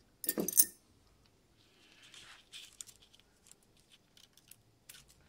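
Metal parts of a NuVinci CVT bicycle hub clinking and rattling as they are handled in a gloved hand: a loud clatter of several quick hits about half a second in, then faint clicks and a brief scrape.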